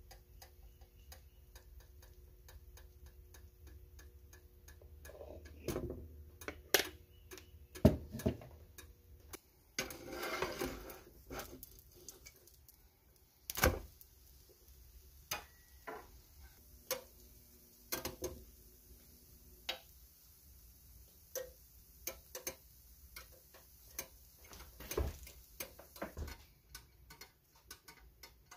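Kitchen sounds of pancakes cooking in a nonstick frying pan: a faint, steady ticking several times a second, with scattered clicks and knocks against the pan and a brief hiss about ten seconds in.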